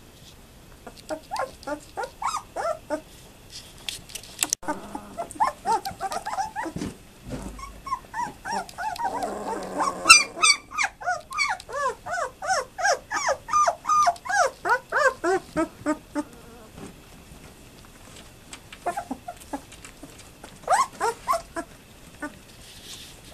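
Twelve-day-old German Shepherd puppies whimpering and squealing in short, high, wavering calls that come in clusters, with a steady run of about three calls a second in the middle.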